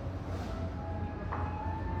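Airport terminal background music: soft sustained notes, with a new note struck a little past halfway and held, over a steady low rumble.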